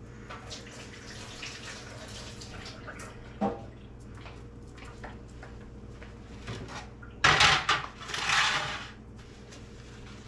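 Kitchen sink tap running as hands are washed under it, with a single knock about three and a half seconds in and the loudest splashing about seven seconds in, lasting a couple of seconds.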